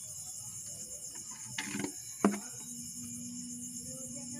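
Crickets chirring steadily. About two seconds in comes a brief rustle, then a single sharp knock of the plastic bottle as the snake is packed into it.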